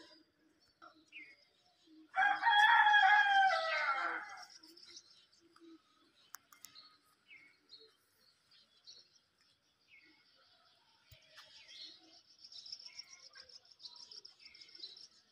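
A rooster crowing once, about two seconds in, a single call of about two seconds that sags in pitch at its end. Faint small-bird chirps are scattered around it.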